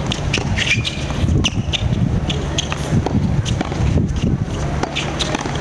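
Tennis ball struck back and forth with rackets in quick volley practice: a string of sharp pops, about two a second, over a low background rumble.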